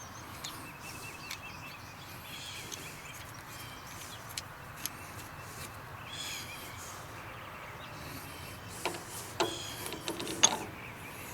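Birds chirping in the background over a steady outdoor hush, with a few light metallic clicks and clinks, most of them near the end.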